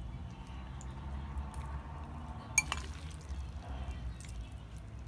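A person eating close to the microphone: soft wet mouth sounds and small clicks, with one sharp click about halfway through, over a low steady hum.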